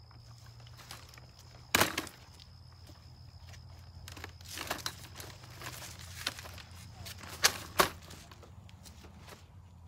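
Britax B-Ready stroller handled on pavement: one loud clack about two seconds in as the folded stroller is set down, then plastic and metal rattling and clicking as the frame is unfolded, and two sharp clicks close together near the end as it locks open.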